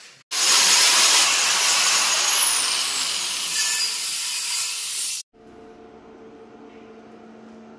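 Angle grinder with a thin cut-off disc cutting into a stainless steel tube: a loud, harsh grinding with a high whine for about five seconds, the whine dropping in pitch a couple of seconds in as the disc takes the load. It stops abruptly, leaving a faint steady hum.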